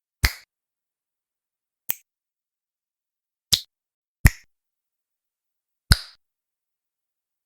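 Finger snaps: five single, sharp snaps at uneven intervals, each with a short ringing tail.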